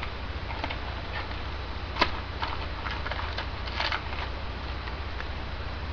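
Trading cards being handled and flipped through: scattered light clicks and rustles, with one sharper snap about two seconds in, over a steady low hum.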